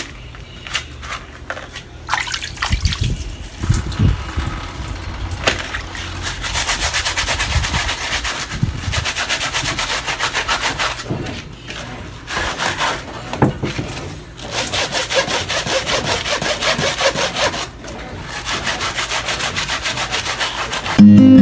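Hand brush scrubbing a rubber slide sandal on a concrete laundry tank, in runs of rapid back-and-forth strokes broken by short pauses, with a few knocks of handling in the first seconds.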